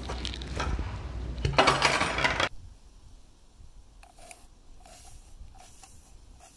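Armature wire clinking and scraping as it is worked with wire cutters to clip it, with a louder rasp for about a second before the sound cuts off abruptly. After that come only a few faint ticks.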